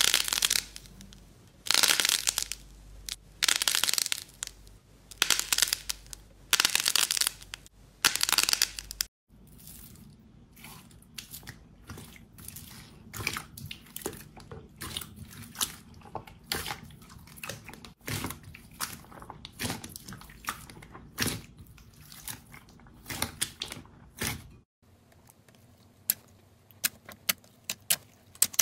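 Crunchy slime being squeezed and pressed by hand, making a series of loud crackling crunches about a second apart. These give way to a softer run of small crackles, then short sharp clicks near the end.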